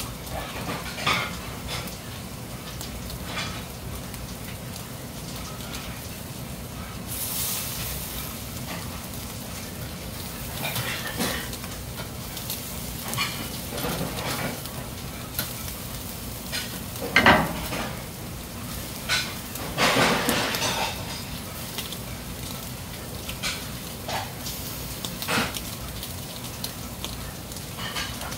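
Freshwater eel fillets sizzling on a wire grill over glowing charcoal, with irregular pops and crackles throughout and a few louder ones in the second half.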